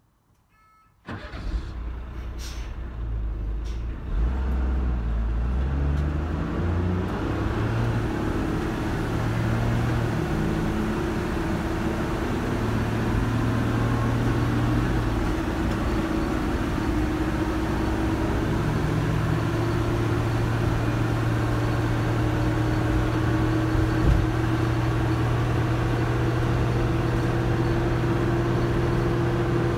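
Dennis Dart SLF bus's Euro 2 diesel engine and Allison AT545 automatic gearbox heard from inside the saloon: about a second in the engine comes in pulling hard, its pitch climbing and dropping back through several gear changes, then settles into a steady drone at cruising speed. A single knock about 24 seconds in.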